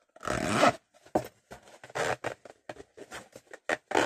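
A series of short scraping rasps and handling knocks as the zip of a handmade cardboard-and-paper vanity case is drawn closed. The longest rasp comes just after the start.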